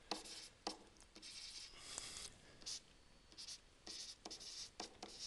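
Faint tapping and scratching of a stylus drawing on a tablet screen: short pen strokes and taps, with a click now and then.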